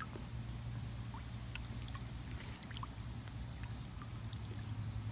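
Faint water movement as a leaf-skimmer net is drawn through pool water, over a steady low hum, with a few light ticks.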